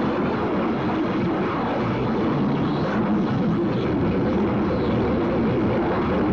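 Harsh noise music from a cassette: a dense, steady wall of distorted noise, heaviest low down, with no breaks or pauses.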